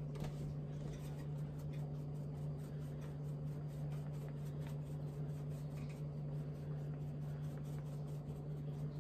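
Spice shaker shaken over a pot of soup: quick, light rattling and scratchy taps, over a steady low hum.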